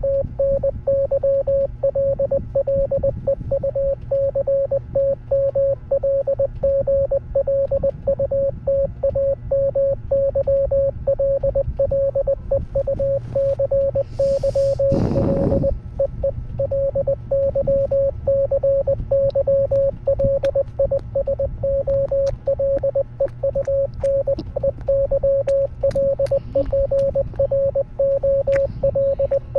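Morse code played as an electronic beep at a single steady pitch, keyed rapidly on and off in dots and dashes. A brief rushing noise comes about halfway through.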